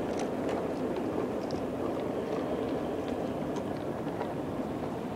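G scale model freight cars and caboose rolling past on track laid in grass: a steady rumble of wheels on the rails, with scattered light clicks.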